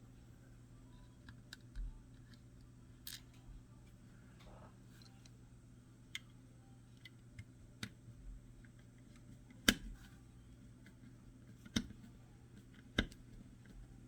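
Small scattered clicks and taps of a screwdriver and the plastic camera housing being handled as the back-cover screws are driven in, with three sharper clicks in the second half. A faint steady low hum lies underneath.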